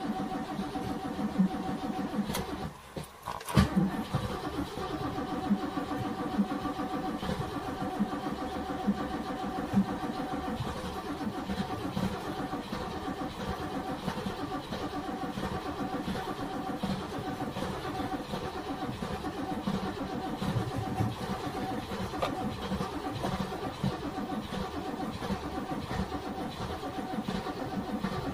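NASCAR stock car V8 engine running. About three seconds in it nearly stops, then picks up again with a sharp loud pop and settles into steady idling.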